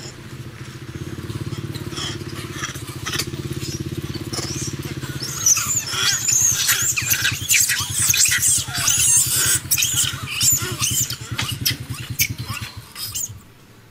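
Long-tailed macaques screaming in rapid, high-pitched squeals from about five seconds in, stopping shortly before the end. Underneath is the steady low drone of an engine running, which turns to a fast chugging about the time the screaming starts.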